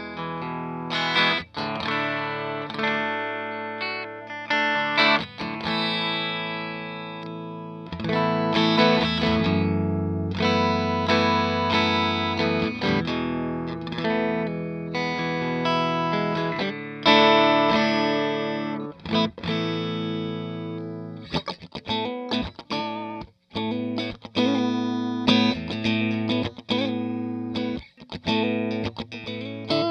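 Electric guitar played through a Hiwatt DR103 clone valve amplifier head with four EL34 power tubes: ringing chords and single-note lines. About two-thirds of the way through the playing turns quicker and choppier, with short strummed stabs.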